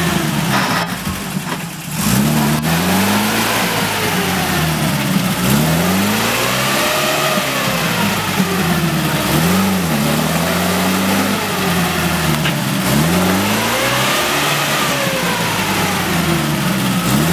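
UAZ-469 off-roader's engine revving up and down over and over under load, as it churns slowly through deep mud.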